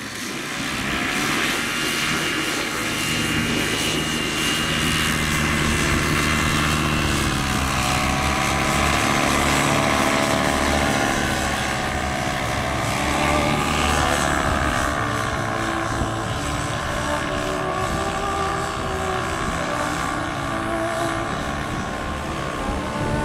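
Motor paraglider's engine and propeller running steadily in flight, its pitch wavering, with a rise and fall about halfway through as it passes.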